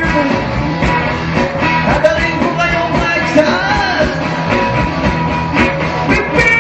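Rock band playing live: drums and guitars with a singer's voice over them.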